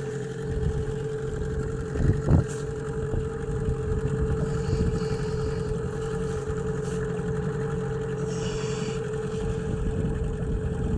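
Golfstream (Parsun) T8 BM 8 hp two-stroke outboard motor running steadily at low break-in throttle, with water splashing against the boat. A brief thump comes about two seconds in.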